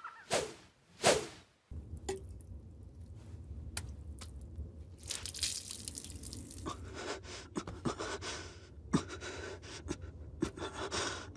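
Two quick whooshes of ninja leaping. Then water splashes and drips from a wet cloth as it is wrung out, with scattered drips over a steady low hum.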